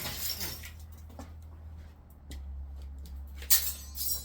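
Parts of a dismantled LCD TV being handled: light scrapes and clicks, then a sharp clattering knock about three and a half seconds in, over a steady low hum.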